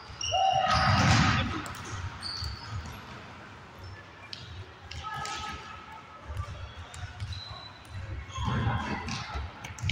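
Indoor youth futsal in a large, echoing sports hall: the ball knocking off feet and the wooden floor, shoes squeaking briefly, and players' shouts, loudest about a second in.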